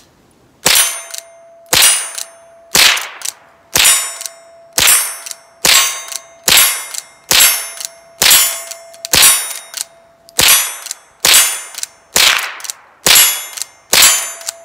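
Rossi .22 LR lever-action rifle fired rapidly, about fifteen shots at roughly one a second, each shot followed by the ring of a steel target being hit.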